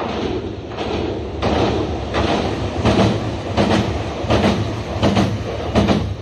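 Nagano Electric Railway express train running past, its wheels clattering over the rail joints in an even rhythm about every 0.7 s over a steady low rumble, getting louder about a second and a half in.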